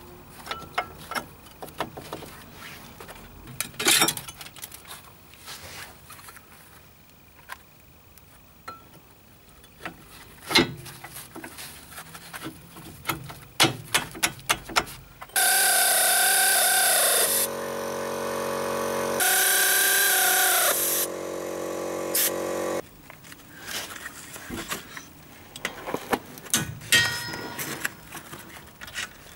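Light metal clicks and knocks of brake parts being handled, then a power drill running for about seven seconds, louder in two spells, driving in the brake caliper bolts.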